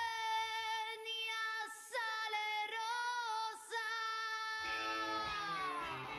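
A woman singing a song, holding long high notes, each a second or two long, with short breaths between them; plucked instruments join in about two thirds of the way through as her last note slides downward.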